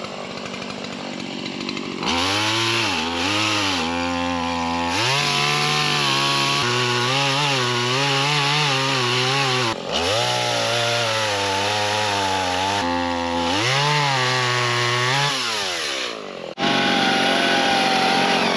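Chainsaw cutting wood, its pitch sagging and climbing again as the chain bites and frees. It comes in loud about two seconds in and breaks off abruptly a couple of times.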